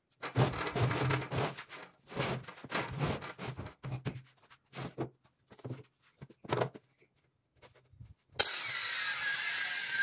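Aluminium guide rail scraping and sliding over a rough-sawn raintree slab and steel table in a series of short strokes, with pauses between. About eight seconds in, a steady loud hiss with a thin high tone sets in abruptly.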